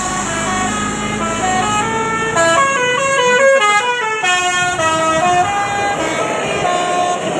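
A bus's telolet horn of the Basuri type playing a quick melody of short stepped notes, several a second, over a low rumble of traffic.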